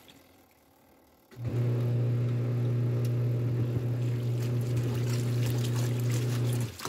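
Top-loading washing machine agitating a load in soapy water: the motor starts with a steady low hum about a second and a half in, with water sloshing, and stops just before the end.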